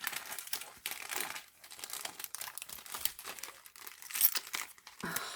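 Paper and card crinkling and rustling as handmade papercraft pieces are handled, in irregular small bursts with a sharper crinkle about four seconds in.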